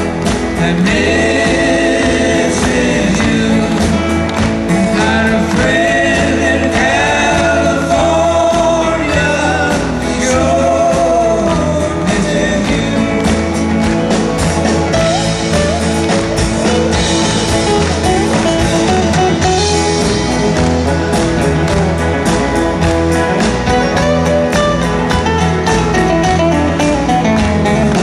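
Live country band playing a song on guitars and drums, loud and continuous.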